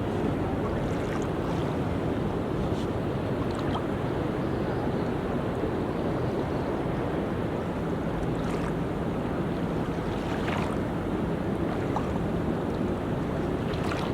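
Sea surf washing steadily onto a beach.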